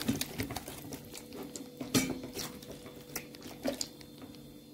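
Silicone-coated wire whisk beating a runny yogurt-and-oil marinade in a plastic bowl: a quick, irregular run of clicks and taps of the wires against the bowl as the liquid swirls, thinning out near the end.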